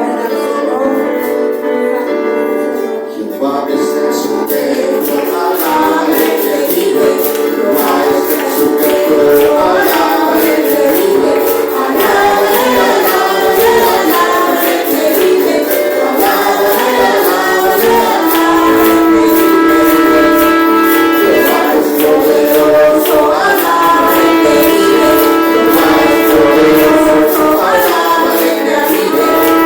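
Church worship song: several voices singing a praise song together over instrumental accompaniment, with a steady percussion beat joining a few seconds in.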